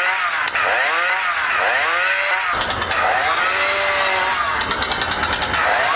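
Chainsaw-engine sound effect from a motorized chainsword prop: quick revs rising and falling in pitch over and over for the first couple of seconds, then running at a steadier pitch, with patches of rapid high clicking.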